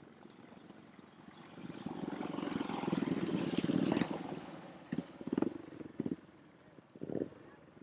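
Single-cylinder speedway motorcycles racing on a dirt track, their engine noise building to a peak as a rider passes close about four seconds in, then a few short bursts as the bikes move off round the bend.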